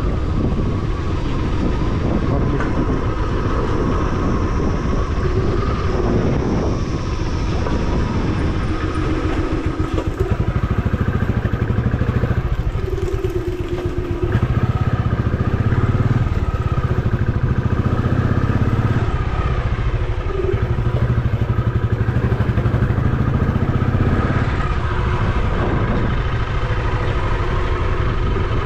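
Motorcycle engine running while riding, a steady low rumble that grows louder about ten seconds in.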